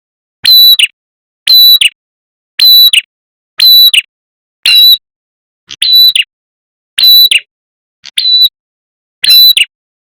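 Prenjak kepala merah lure call (pikat): a short, sharp, high call repeated about once a second, loud and clipped, looped to draw in wild birds of the same kind.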